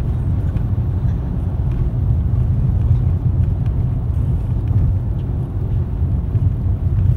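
Steady low rumble of road and engine noise inside a car's cabin at expressway speed.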